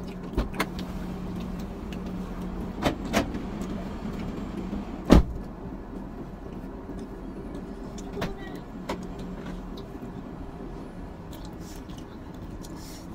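Steady low hum of a vehicle cabin with the engine running, broken by a handful of short clicks and knocks. The loudest knock comes about five seconds in, with smaller ones around three seconds and eight to nine seconds in.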